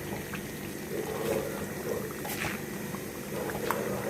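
Raw mango thokku in hot oil simmering and bubbling in a pan on a low flame while it is stirred, with a few light clicks of the spoon against the pan.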